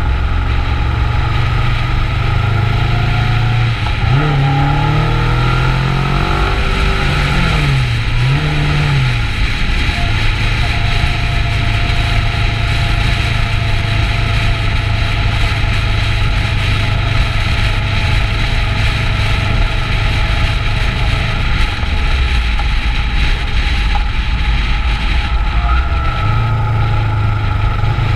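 Kawasaki Ninja 650's parallel-twin engine running on the move, over steady wind and road noise. The engine note rises and dips a few times between about four and nine seconds in, holds steady for a long stretch, then changes and gets louder near the end.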